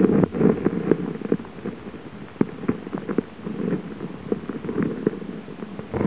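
River water running steadily, with many small irregular splashes and ticks.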